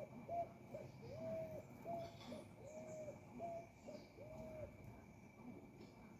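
A bird calling: a repeating phrase of one long, low note followed by two short ones at the same steady pitch, stopping about four and a half seconds in.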